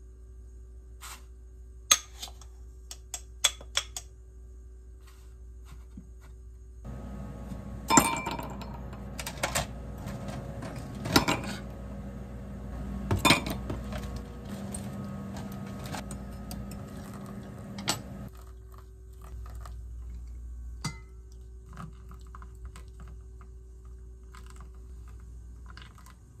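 Glass and metal clinks from hand-brewing coffee: light taps of a glass coffee jar and scoop, then several sharp clinks of ice cubes and a glass pitcher over a steady hum through the middle stretch, and a few small clicks near the end.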